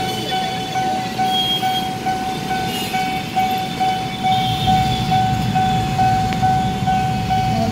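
Railway level-crossing warning bell sounding a single tone that pulses evenly and without pause while the barrier is down. A low rumble grows louder about halfway through.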